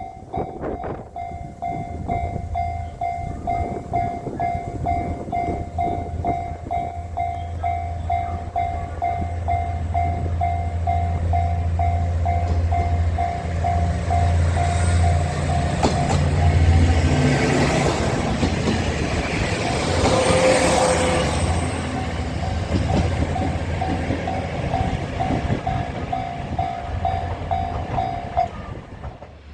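Level-crossing warning bell ringing in a steady repeating pulse while a JR KiHa 47 diesel railcar passes over the crossing. Its engine drone builds, and the train is loudest a little past halfway. The bell stops shortly before the end.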